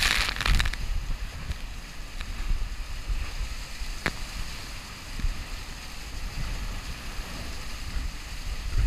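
Wind buffeting the microphone and water rushing past the hull of a Class 40 racing sailboat sailing fast through storm waves, with a burst of spray hiss at the start and a single sharp knock about four seconds in.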